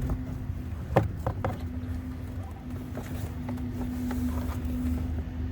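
New cabin air filter being pushed into its plastic housing behind the glove box of a 2016 Honda Civic: a few sharp knocks and taps, the loudest about a second in, over a steady low hum.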